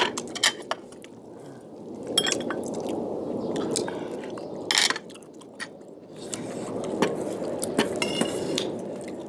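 Two people eating close to the microphone: chewing mouthfuls of radish rice, with metal spoons clicking and scraping against stainless steel bowls. The clicks are scattered, and the loudest is a short clatter about five seconds in.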